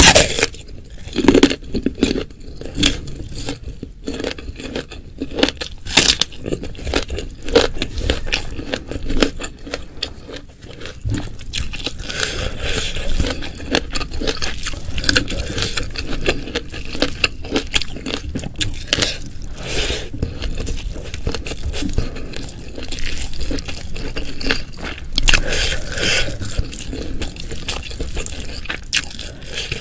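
Close-miked eating sounds: food being bitten, chewed and crunched in an irregular run of sharp clicks, with some scraping.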